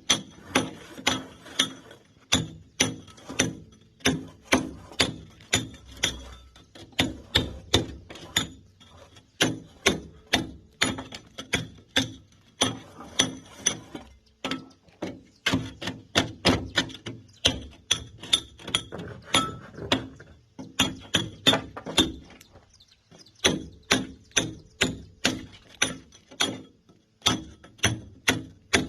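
Hammer striking a steel chisel to break concrete: rapid, ringing metal-on-metal blows, about two to three a second, with a couple of brief pauses.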